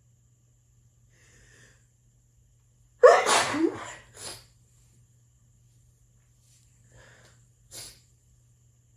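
A person sneezing once, loudly, about three seconds in, after a faint breath. A short puff follows about a second later, and there is another brief breathy sound near the end.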